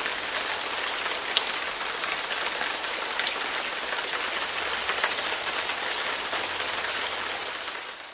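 Steady rain falling, with a few sharper drop ticks; it fades out near the end.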